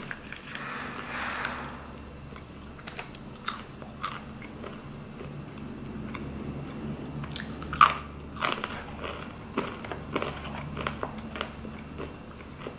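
Biting and chewing crisp sweet potato fries: a run of sharp crunches over steady chewing, the loudest crunch about two thirds of the way through.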